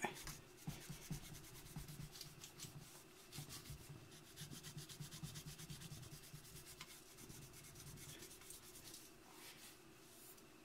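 Faint, quick repeated strokes of a damp cloth rubbing over a chrome-plated Jeep hubcap, wiping loosened rust off the plating.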